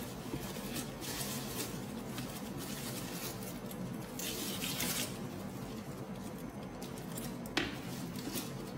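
A white dust bag rustling and crinkling as a handbag is lifted and pulled out of it, in two main bursts, with one sharp click near the end.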